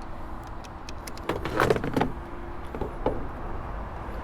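Clicks and knocks of a jump starter's metal crocodile clamps being handled and fitted onto a van battery terminal, a cluster of them between about one and two seconds in and a couple more near three seconds, over a steady low rumble and faint hum.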